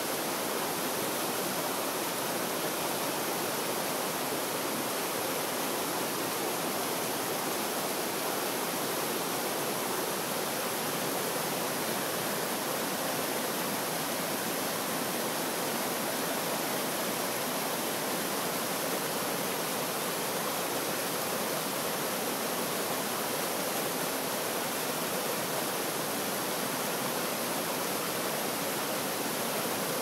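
Mountain stream rushing over boulders in small cascades: a steady, even rush of water with no breaks.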